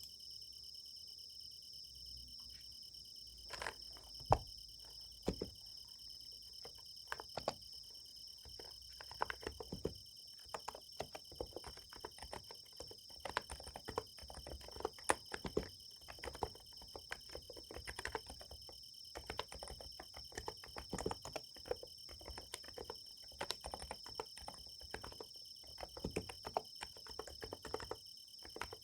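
Summer-night insects chirp steadily in a high band. About three and a half seconds in, keystrokes on a Niz Plum x108 electro-capacitive keyboard begin: a few scattered at first, then steady, irregular typing.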